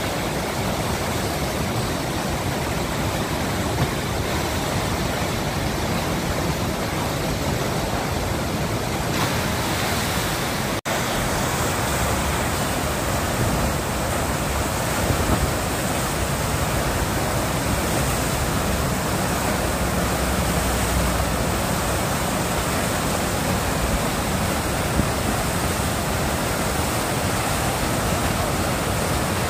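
Fast river water rushing and churning through the Eisbach standing wave as steady whitewater noise, without let-up. It cuts out for an instant about eleven seconds in.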